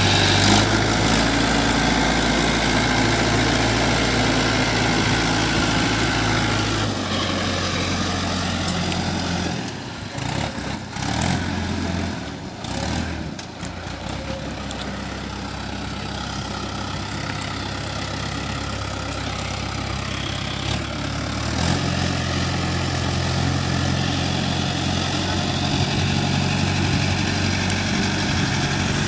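Mahindra Arjun Novo tractor's diesel engine running as it works through deep mud. Its note and loudness shift about a quarter of the way in and again about three-quarters through.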